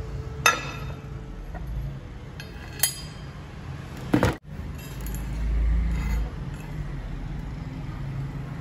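Small steel pieces set down on a steel plate: two sharp, ringing clinks and then a louder metallic knock, over a steady low hum.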